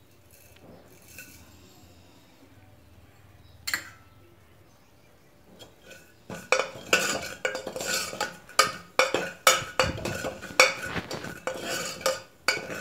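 Steel ladle stirring mustard and cumin seeds in hot oil in an aluminium pressure-cooker pot, clinking and scraping against the metal in a busy run from about six seconds in. There is one sharp clink a little before that.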